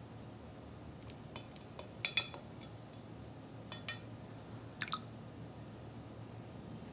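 A long spoon clinking lightly against a glass measuring jug of orange liquid: a scatter of thin clinks in three small clusters, the loudest about two seconds in.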